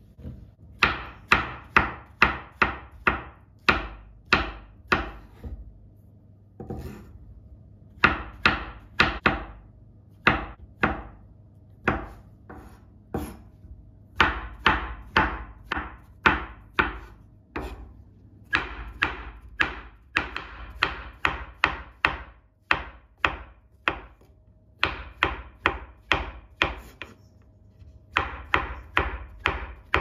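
Santoku knife slicing button mushrooms on a wooden cutting board: runs of crisp knife strikes against the board, about three or four a second, broken by short pauses.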